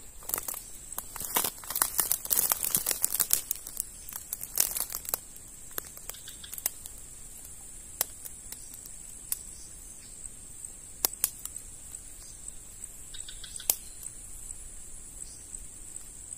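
Dry twigs and brush crackling and snapping densely for the first few seconds, then only the odd sharp click, as a person moves and settles in dead undergrowth at the water's edge. A steady, high, thin buzz runs underneath, typical of insects.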